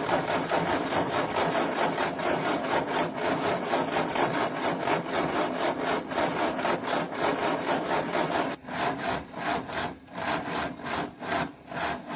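Rapid back-and-forth rasping strokes of hand abrasion on a surface, like sanding, filing or scraping. About eight and a half seconds in, the strokes slow into separate strokes about three a second.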